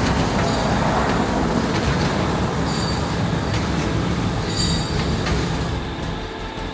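Red-hot forged steel bow shackles quenching in an oil tank: the oil boils and churns around the hot steel with flames flaring on the surface, a steady rushing noise.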